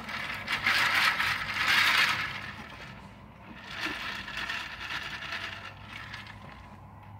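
Water being swirled and shaken inside a lidded plastic tumbler, the drink sloshing against the walls. It comes in two spells: a stronger one in the first two seconds and a weaker one about four seconds in.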